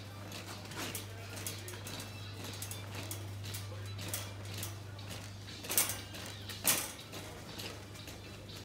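Wire supermarket shopping cart rattling and clattering as it is pushed along, with two louder clatters about two-thirds of the way through. A steady low hum runs underneath.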